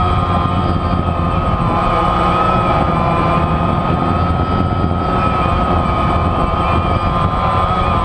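DJI Phantom quadcopter's motors and propellers running in a hover, heard close up from the drone's own camera: a steady whine whose pitch wavers slightly as the motors adjust, over a rushing noise of prop wash.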